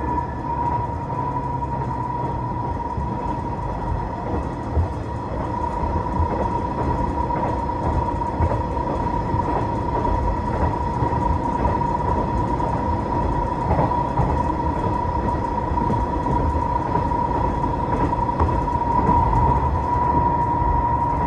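Diesel railcar running along the track, heard from inside the car: a steady low rumble carrying a high, steady whine, with a few faint wheel clicks over rail joints.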